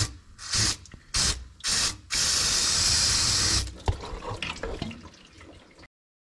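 Aerosol brake cleaner sprayed onto an engine block in four short bursts, then one long spray of about a second and a half, degreasing the freeze-plug hole. A single sharp click follows the long spray.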